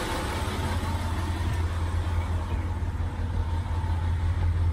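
Volvo Penta TAMD70C marine diesel engines idling smoothly with a steady low hum.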